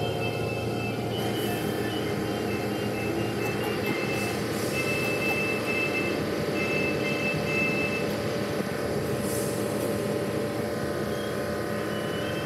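Automated car wash tunnel running: a steady spray-and-machinery noise with a low hum, muffled by a glass window. A short run of repeated high tones sounds over it in the middle.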